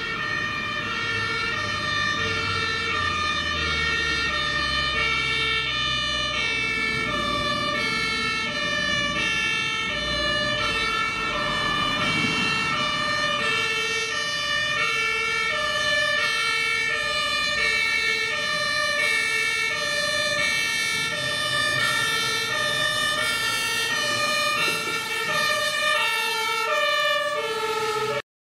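German two-tone fire-engine siren (Martinshorn) alternating steadily between two pitches, each held a little under a second, over truck engine and road noise. The road noise swells about halfway through as a vehicle passes close, and everything cuts off abruptly near the end.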